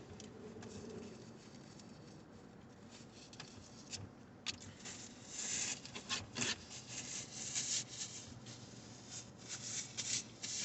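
Faint eating sounds: chewing food close to the microphone, with irregular short crunchy, clicky noises that grow busier from about four seconds in.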